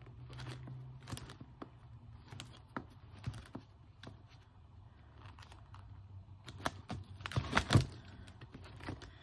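Laminated planner dashboards and dividers being flipped one after another on a disc-bound planner's plastic discs: a run of light clicks and rustles, busiest and loudest about seven to eight seconds in.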